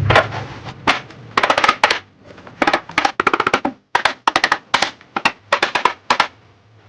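Runs of sharp knocks and taps on wood, several in quick succession each time, as wooden parts are knocked together while a joint is worked.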